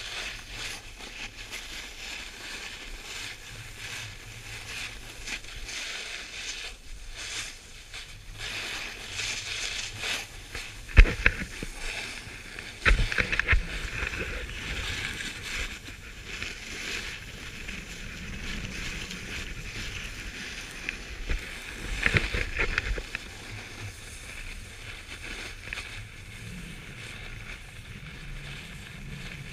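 Snowboard sliding and scraping over packed snow, a steady hiss with wind rushing past the microphone. A few louder bursts of scraping and knocking stand out, about a third of the way in and again past the middle, as the board chatters or the pole is jolted.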